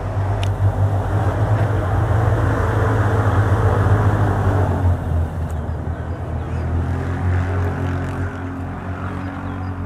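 A loud, steady rumble of a passing vehicle with a low hum in it, swelling about four seconds in and then slowly fading.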